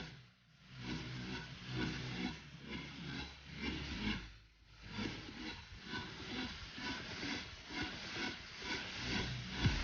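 Trance music, a hissing sweep over a regular pulse of about two beats a second, dropping out briefly twice.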